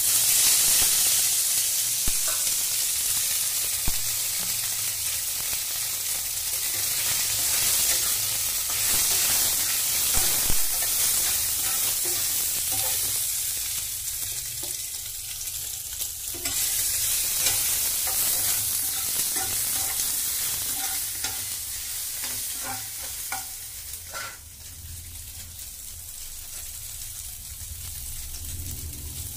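Soya chunks hissing and bubbling in a kadai of hot water on a gas stove. The hiss starts suddenly as the chunks go in and eases off toward the end, with light clinks and scrapes of a metal spatula stirring them.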